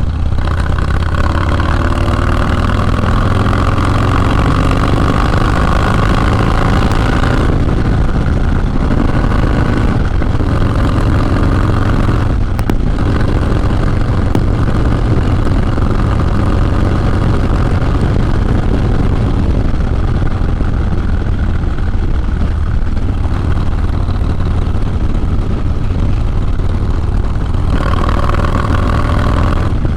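Harley-Davidson Low Rider S's 110 cubic inch V-twin running under way through a Sawicki Speed 2-into-1 exhaust. The exhaust note is loud and steady, and its pitch changes a few times, around seven, ten and twelve seconds in and again near the end.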